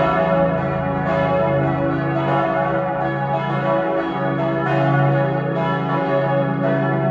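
Four church bells tuned to C♯, E, F♯ and G♯ ringing together to call to a church service, their strikes overlapping into a continuous peal with a fresh stroke about every second.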